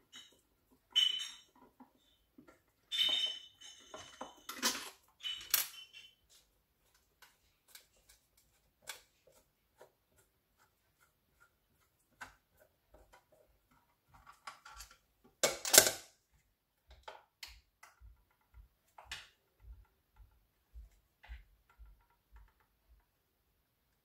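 Flathead screwdriver working out the faceplate screws of a plug socket: scattered small metallic clicks and scrapes of the blade in the screw heads, with one louder sharp knock about fifteen seconds in.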